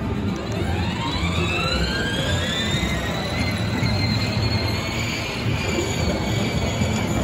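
Electric drive motor of a 12-volt battery-powered ride-on toy jeep whining, rising in pitch over the first three seconds as it speeds up and then holding steady. A low rumble runs underneath.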